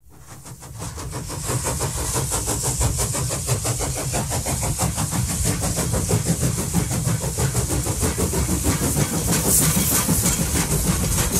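Train in motion heard from aboard a carriage: a steady rumble and hiss with a quick, even rhythm of beats, fading in over the first two seconds.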